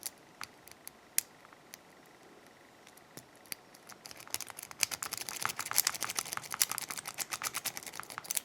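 Hook pick clicking against the spool pins inside a pin-tumbler padlock held under tension: a few separate clicks, then from about four seconds in a fast run of clicks as the pick works the pins up and down.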